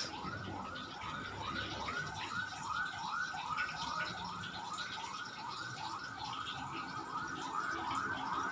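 Electronic siren sounding a fast, repeating rising whoop, about three a second, steady throughout.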